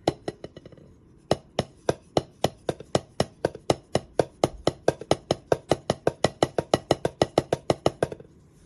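Drumsticks tapping a silicone practice drum pad, with a few loose hits and then a steady run of strokes at about four a second, some louder than others.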